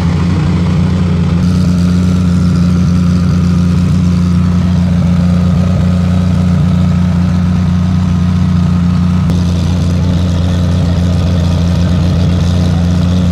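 A loud, steady low mechanical drone with an unchanging pitch.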